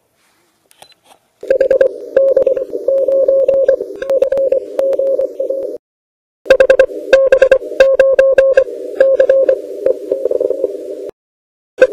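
Morse code (CW) on the 40 m band from a portable HF transceiver's speaker: a tone keyed in dots and dashes over the hiss of a narrow receiver filter, with crackles. The audio cuts out completely twice, for well under a second each time.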